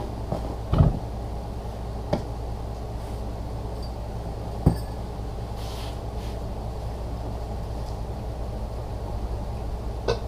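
A few short knocks and clicks from NP208 transfer case parts being handled during teardown, over a steady low hum.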